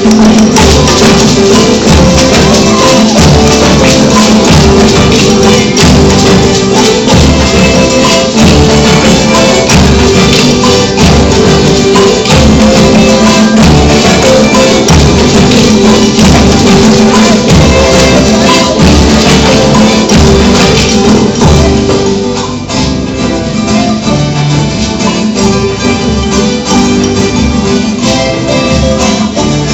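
Music with a tambourine keeping a steady rhythmic beat under pitched instruments; it gets a little quieter about 22 seconds in.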